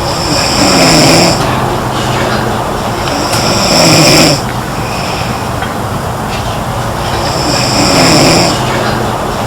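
A girl snoring in slow, regular breaths: three loud snores, about one every three to four seconds, each with a low rattling rasp and a breathy hiss.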